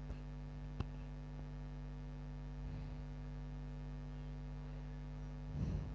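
Steady electrical mains hum, with a single sharp click a little under a second in.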